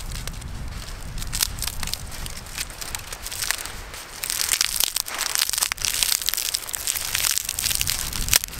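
A handful of dry grass tinder crushed and twisted between the hands into a tinder bundle for a fire. It makes a dry crackling and crunching that gets denser and louder about four seconds in.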